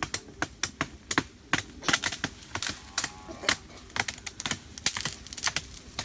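A quick, uneven run of sharp woody knocks and cracks, about four a second, from someone working among the branches of a tree.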